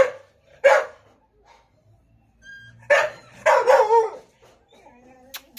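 A dog barking: two short barks near the start, then a louder run of barks about three seconds in.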